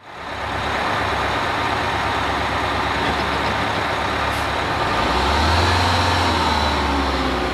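A road vehicle running: steady engine rumble and road noise that fades in over the first second, with the low rumble swelling about five seconds in.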